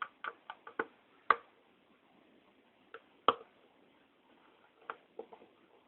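Irregular sharp clicks and taps of a screwdriver with interchangeable bits being handled, about a dozen in all, the two loudest about a second and three seconds in.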